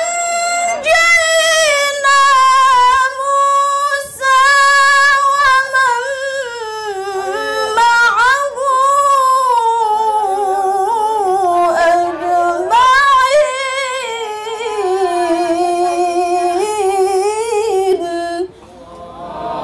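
A woman reciting the Qur'an in melodic tilawah style into a microphone. One amplified voice holds long, ornamented phrases that slide and waver in pitch, with short breaths between them. The voice settles lower as it goes and the phrase ends about a second before the close.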